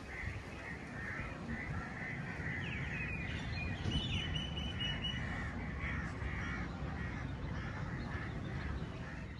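A flock of birds calling outdoors, with many short calls overlapping throughout and a brighter run of higher chirps in the middle. A steady low rumble runs underneath.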